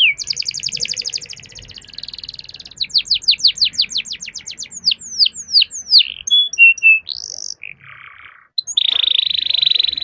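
Domestic canary singing: fast rolls of repeated falling whistled notes, first quickly and then slowing, then a few separate notes. About a second before the end comes a harsh, buzzing trill.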